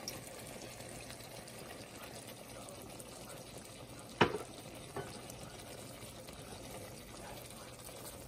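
Shrimp cooking in melted butter and hot sauce in a frying pan, sizzling faintly and steadily, with a sharp knock about four seconds in and a lighter one a second later.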